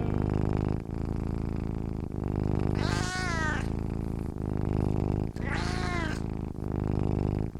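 Cat purring steadily in a rhythm of about one breath a second, with two meows that fall in pitch, about three and six seconds in.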